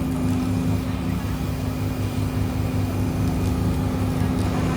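Boat engine running steadily, a low pulsing throb with a steady hum over it.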